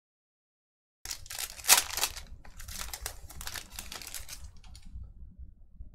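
Trading-card pack wrapper being torn open and crinkled, starting after about a second of dead silence, with one sharp snap early in the tearing, then fading out near the end.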